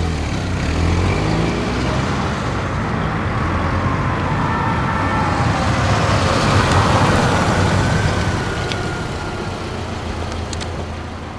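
Car driving, engine and road noise heard from inside the cabin, growing a little louder towards the middle and easing off near the end.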